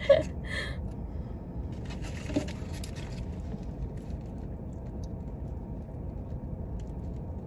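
Steady low rumble inside a parked car's cabin, with brief rustling and scraping handling noises in the first three seconds and a single light tick.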